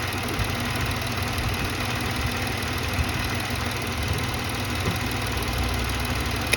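2006 Pontiac Grand Prix's 3.8-litre V6 idling steadily at operating temperature, with the coolant system being bled.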